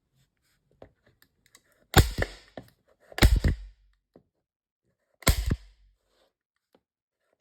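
Stapler firing 8 mm staples into two layers of 4 mm wood: three sharp snapping shots about a second or two apart.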